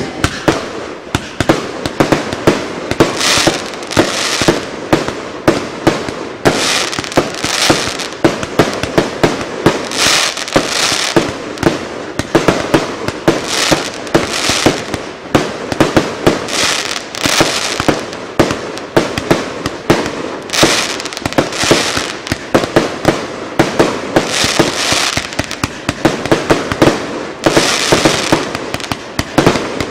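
A 100-shot, 30 mm fireworks cake firing continuously: launch thumps and shell bursts banging in rapid succession, a few each second.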